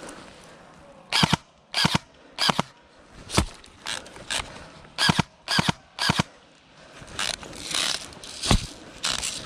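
Airsoft gun firing single shots, a sharp crack roughly every half second to second, about a dozen in all, with short pauses between groups.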